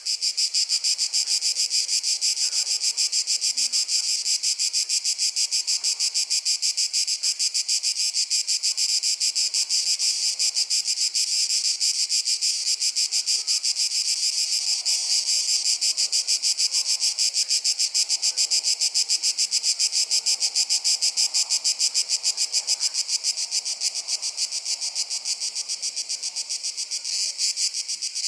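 A loud chorus of insects in a Mediterranean forest, a dense high-pitched shrill pulsing evenly about five times a second without a break.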